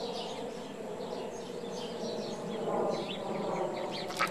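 Outdoor background noise with scattered short, high chirps of small birds.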